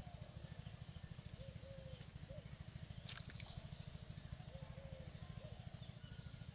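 Rural outdoor ambience: a short animal call repeats about every second and a half over a steady, rapid low pulsing, with one sharp click about three seconds in.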